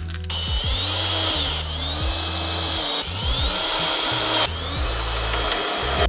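Cordless drill-driver driving screws into wood in about four short runs. Each run spins up in a rising whine, holds steady for about a second and then stops.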